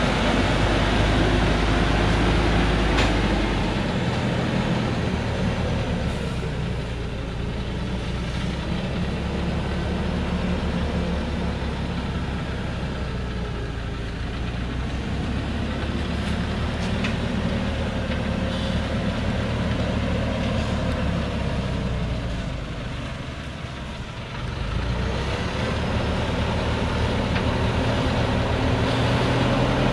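Thaco Forland FC950 4WD truck's diesel engine running as the truck crawls along a rutted dirt track, its pitch rising and falling with the throttle. It dips briefly a little after the middle, then grows louder near the end as the truck comes close.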